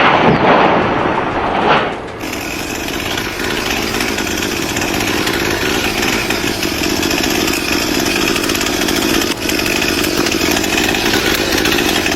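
A motorised power tool running steadily at an even speed. It starts abruptly about two seconds in, after a cut from a different sound.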